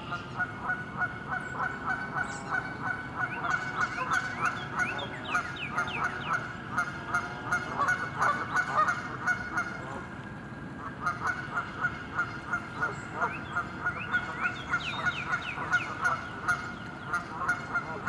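Canada geese honking in quick succession, several calls a second, easing off briefly around ten seconds in before picking up again.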